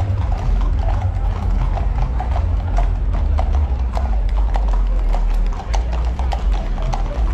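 Horses' hooves clip-clopping on a paved street, many irregular hoof strikes from several horses walking past, over a steady low rumble.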